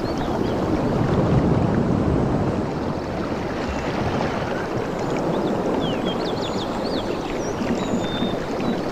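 Steady rushing noise of river water and wind, with brief bird chirps in the second half.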